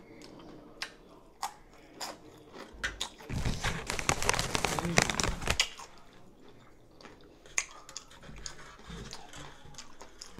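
Close-up chewing and crunching of a jalapeño pepper half stuffed with cream cheese and crushed Takis, loudest and densest for a couple of seconds in the middle. Scattered small clicks follow as a plastic spoon scrapes in the cream cheese tub near the end.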